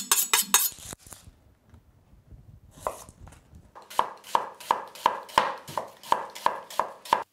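A kitchen knife is drawn in a few quick strokes along a sharpening steel. After a short lull the knife slices an onion into strips on a wooden cutting board: steady knocks of the blade on the board, about three a second.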